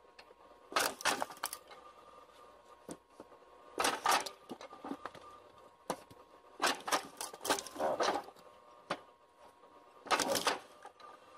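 Firewood processing machine at work: bursts of clattering knocks every two to three seconds, as pieces of wood strike and tumble, over a faint steady mechanical hum.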